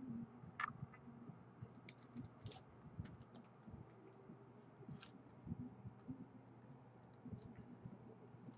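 Faint, scattered clicks and light rustling of trading cards and their plastic holders being handled and sorted.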